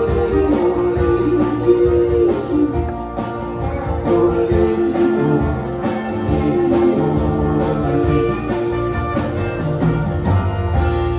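Live country band playing, electric guitar to the fore over bass and a steady drum beat.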